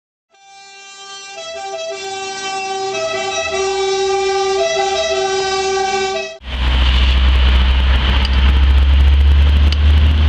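Emergency-vehicle two-tone siren that fades in and grows louder, its upper note switching back and forth unevenly over a steady lower note. About six seconds in it cuts off abruptly and is replaced by a loud, low, rumbling noise.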